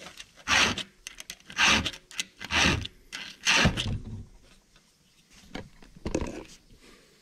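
Round file rasping across a chainsaw chain's cutter tooth in about four forward strokes, roughly one a second, sharpening the tooth to a straight edge. The filing stops about four seconds in.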